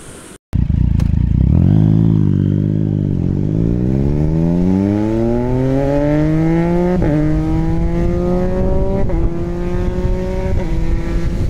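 Triumph Street Triple 675's three-cylinder engine accelerating hard, its revs rising in one long climb. It then shifts up three times in quick succession, each shift a brief dip in pitch before the revs rise again.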